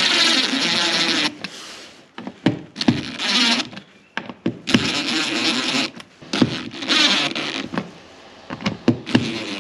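Cordless drill-driver running in short bursts, five times, with brief pauses and clicks between, driving screws into small fittings on a boat console.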